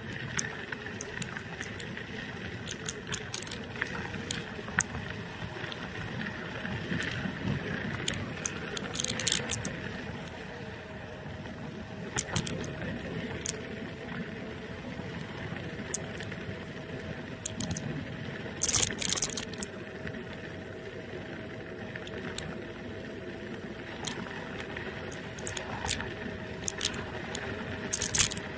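NIU KQi2 electric scooter riding over rough asphalt: a steady motor whine over tyre rumble, with frequent light clicks and rattles from the scooter over bumps and a few louder rattles along the way.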